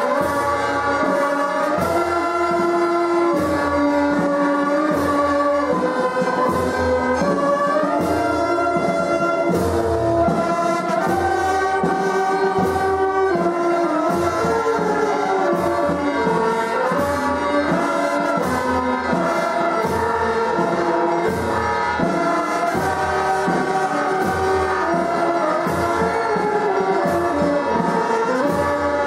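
Brass band music: a slow melody of held notes over a steady beat.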